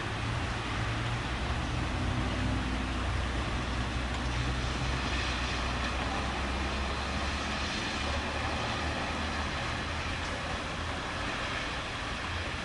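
Steady low rumble of city road traffic, with engine hum, under a broad even hiss of rain during a thunderstorm.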